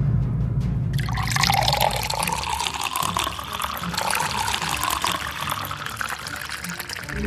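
Water running and splashing, starting about a second in.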